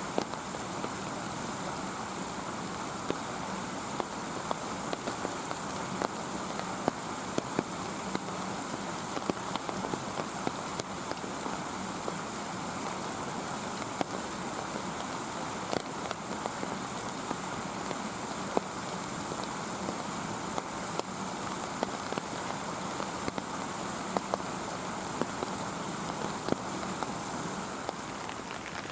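Steady background hiss with a faint low hum, broken by scattered small clicks and taps.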